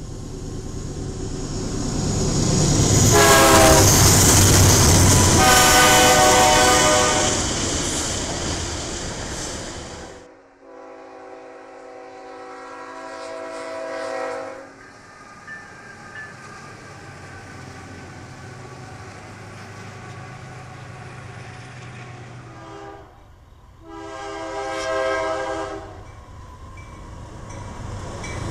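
Diesel freight locomotive horns sounding over the rumble of passing freight trains. Two long horn blasts come over a loud rumble, then after a sudden cut a long blast over a quieter rumble. After another cut there is a shorter blast, and near the end the rumble of an approaching train grows loud.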